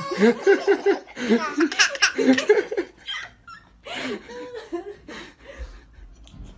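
Baby laughing in quick rhythmic bursts for the first three seconds, then a few softer vocal sounds about four seconds in.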